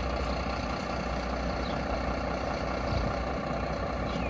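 Engine of a parked emergency vehicle idling steadily, a constant low hum, with a few faint ticks.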